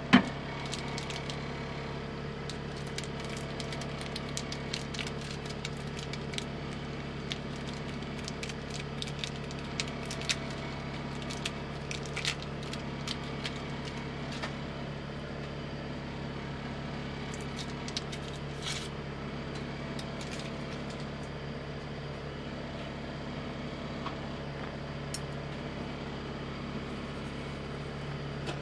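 Steady electrical hum of an induction cooktop heating a pot of water. Scattered sharp clicks and ticks come over it, thickest in the first half, with a single loud knock right at the start.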